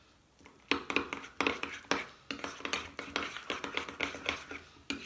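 Metal spoon stirring cream-and-ricotta cannoli filling in a small glass bowl, clinking and scraping against the glass in quick, uneven strokes, about two or three a second, starting under a second in.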